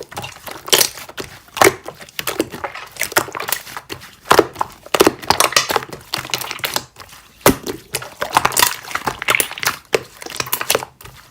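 Slime being squeezed and pressed by hand, giving an irregular run of crisp crackles and crunchy pops.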